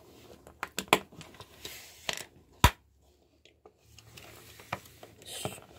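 Plastic Lego bricks clicking and knocking as pieces are handled and pressed together on a wooden table: a handful of sharp clicks, the loudest a little past halfway, with brief light scraping.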